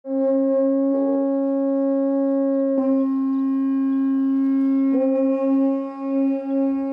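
A pair of gyalings, Tibetan monastery double-reed horns, sounding one long held note with a bright, buzzy edge. The note is blown afresh about three seconds in and again about five seconds in, and begins to waver near the end.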